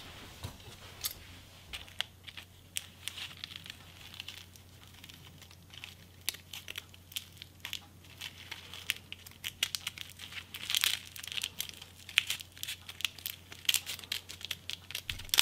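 Adhesive tape being picked at and peeled off a bundle of coiled fireworks fuse: irregular crinkling, ticking and tearing, with a louder burst about two-thirds of the way through.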